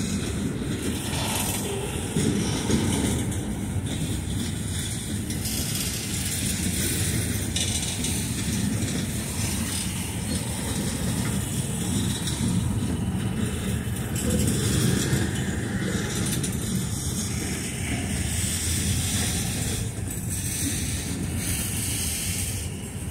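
A CSX freight train's cars rolling past on the track: a steady rumble of steel wheels on rail, with no breaks or changes in level.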